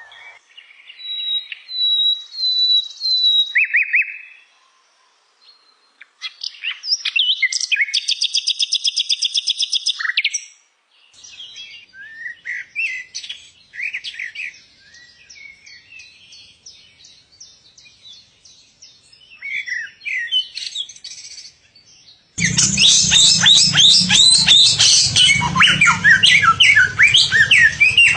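Songbirds singing in a sequence of separate recordings: clear whistled notes, then fast buzzy trills, then scattered quieter chirps. About 22 seconds in it cuts suddenly to a louder, dense run of rapid chirping over a steady low hum.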